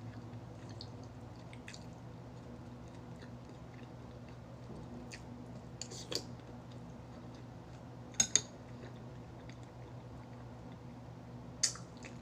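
A person eating: soft chewing with a few sharp clinks of cutlery on a dish, two close together about two-thirds of the way through and one more near the end, over a steady low hum.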